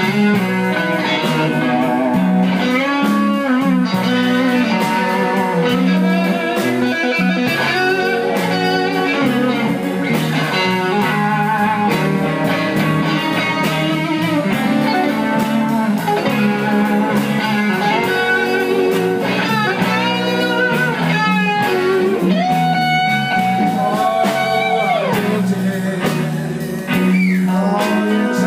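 Live band playing a slow blues instrumental break: an electric guitar solo full of bent notes over bass and rhythm guitar.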